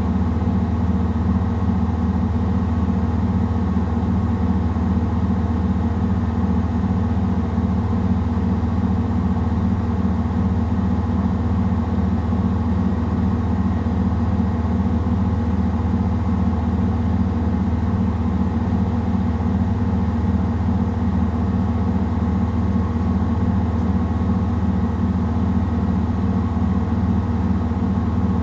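Samsung WW70T4020EE front-loading washing machine spinning a load of clothes at a steady speed. It makes a steady low hum with an even, regular pulse running through it.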